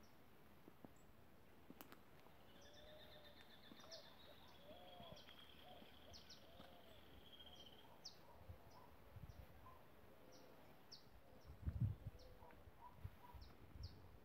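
Faint wild birdsong: one bird gives a long, fast trill lasting several seconds while others repeat short high chirps and lower warbling notes. A few low thumps come in the last few seconds.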